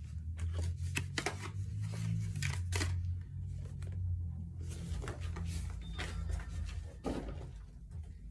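Rustling of packaging with irregular small clicks and knocks as toiletry items are handled and set onto wire shelves, over a steady low rumble.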